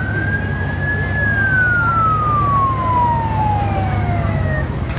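A siren sounds one wail, rising quickly in pitch, peaking about a second in, then slowly falling away until near the end. Under it runs the steady low rumble of passing vehicle engines.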